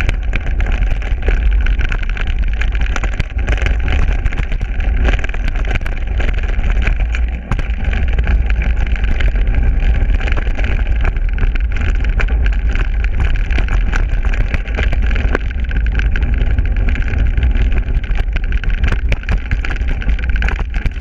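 Wind buffeting a GoPro's microphone on a moving mountain bike, a loud steady rumble, with the tyres rolling over a dirt trail and frequent small clicks and rattles from the bike over bumps.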